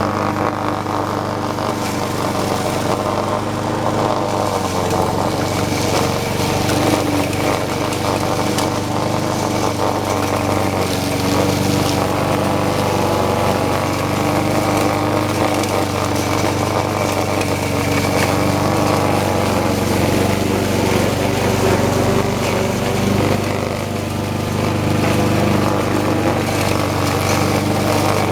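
Troy-Bilt 21-inch walk-behind lawn mower's small engine running steadily under load while mowing through tall grass, its pitch and level wavering slightly as the blade takes in the grass.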